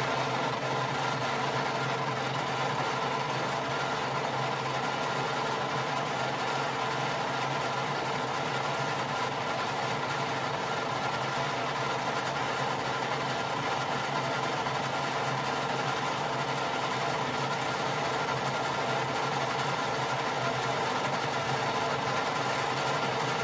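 Metal lathe running steadily with a constant hum and whine as a parting tool cuts into the spinning nylon bar to part off a washer.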